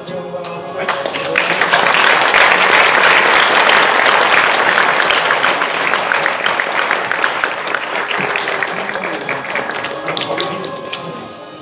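Audience applauding: a dense clatter of many hands that swells about a second in and dies away near the end.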